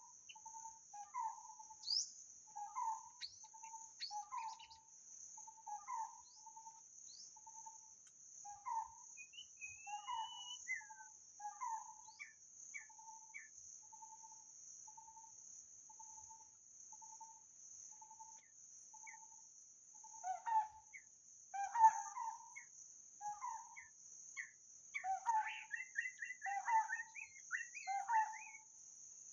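White-rumped shama singing in short whistled phrases: low notes, with higher notes and slurs between them. The low notes repeat evenly for several seconds mid-way, and the phrases grow busier near the end. A steady high insect drone runs underneath.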